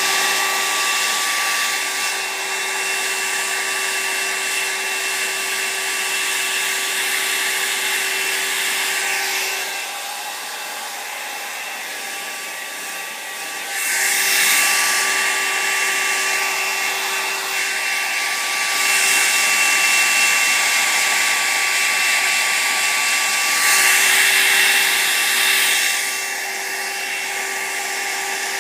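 Electric hair dryer running steadily with a whine and a rush of air, growing louder and hissier three times for a few seconds each.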